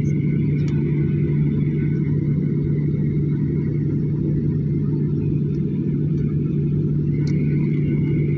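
Steady cabin rumble of a jet airliner heard from inside the cabin, its engines running at low power on the ground, with a constant low hum and a faint steady high whine.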